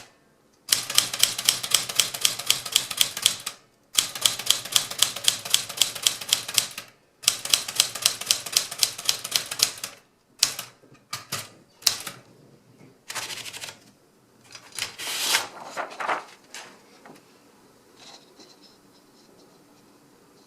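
Smith Corona Galaxie Twelve manual typewriter being typed on: four even runs of key strikes at about four a second, broken by short pauses. Then come a few irregular clicks and two longer rasping sounds before it goes quiet.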